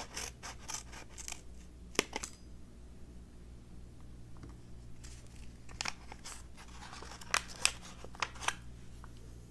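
Paper instant-drink pouch being handled and opened, with sharp crinkles and snips in two clusters: one at the start, a louder one from about six seconds in.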